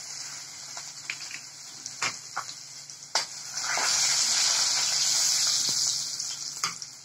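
Hot-oil tempering of mustard seeds, cumin, asafoetida and garlic sizzling in a kadhai. The sizzle grows louder about midway as a spoon stirs it, with a few sharp clicks.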